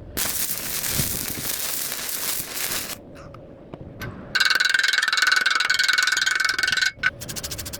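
Electric arc welding: a steady crackling hiss from the arc that stops about three seconds in and starts again, louder and with a steady high-pitched whine in it, about a second later.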